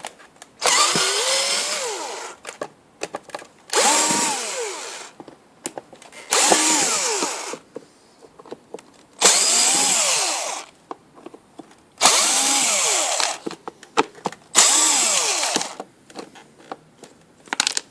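Cordless drill-driver unscrewing the screws that hold the top of the vacuum cleaner housing: six short runs of about a second and a half each, the motor's whine rising and then falling every time, with small clicks between runs.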